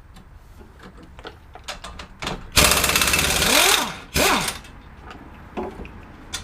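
Impact wrench hammering on a stubborn 15 mm caliper bracket bolt: a loud rattling burst of over a second, then a shorter second burst, each winding down with a falling whine. Light clicks and knocks of tools around it.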